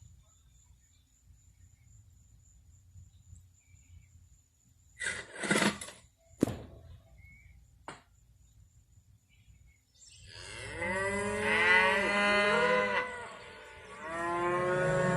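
Moo-can cow noisemaker toy, heard as the left surround channel's test sound: a few sharp clicks and clatters, then a long warbling moo from about ten seconds in, and a second moo starting shortly before the end.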